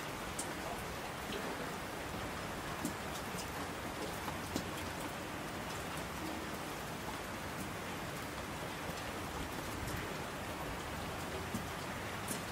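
Steady rain falling, a constant even hiss with scattered individual drops ticking through it.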